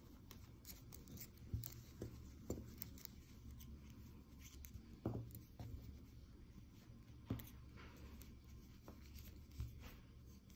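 Metal knitting needles clicking and yarn rubbing softly as stitches are knit, with a few sharper needle clicks scattered through.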